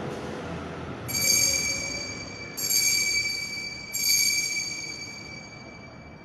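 Altar bell struck three times, about a second and a half apart, each high-pitched ring fading slowly: the consecration bell rung at the elevation of the host.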